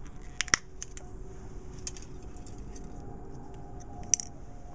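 Plastic lens being popped out of a pair of plastic-framed reading glasses: a sharp plastic click about half a second in, a few light ticks of handling, and a second click just after four seconds as the freed lens is set down on a wooden board.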